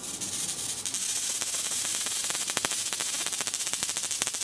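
Electric mosquito racket's charged mesh crackling, a steady hiss with rapid, irregular snaps of sparking: the 'char char' sound of a mosquito stuck in the mesh while the button is held down, which the presenter says wears out the racket's capacitor.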